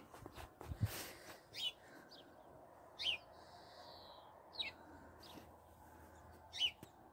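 A small bird chirping outdoors, giving single short high calls about every one and a half seconds.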